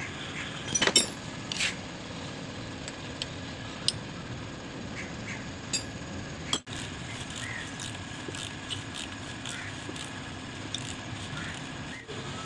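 A few light metallic clinks and ticks from hands and tools handling the timing chain and parts of an engine, the loudest cluster about a second in. Steady background noise runs underneath.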